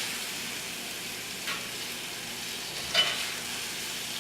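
Food sizzling steadily in hot oil on the stove, with a cooking utensil knocking against the pan twice, about a second and a half in and again about three seconds in.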